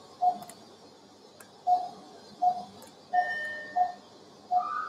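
Anaesthesia patient monitor giving a short mid-pitched pulse beep with each heartbeat, about one every 0.7 s (around 85 a minute), with one beat missing about a second in. A higher steady tone joins for under a second about three seconds in.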